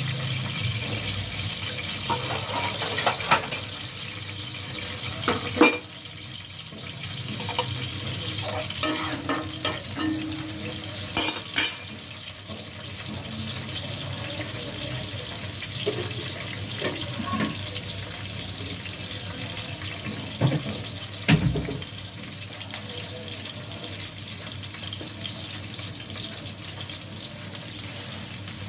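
Sliced onions frying in hot oil in an aluminium pot, a steady sizzle, with a few sharp metal clinks and knocks scattered through it.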